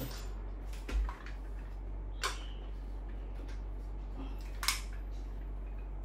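Items being handled: a dull thump about a second in, then two short sharp clicks, over a steady low hum.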